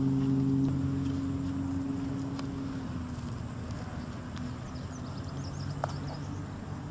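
A steady low motor hum, fading out over the first three seconds, under a constant high insect buzz. A few faint bird chirps and one sharp tick come near the end.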